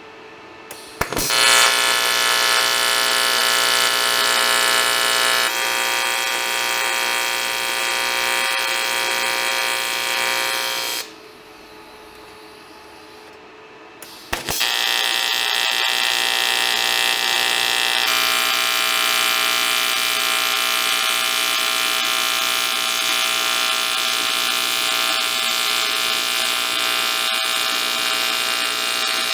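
Welding arc buzzing steadily as the intercooler pipes are welded on the bench. It starts abruptly about a second in, runs about ten seconds and cuts off, then strikes up again after a three-second pause and keeps going.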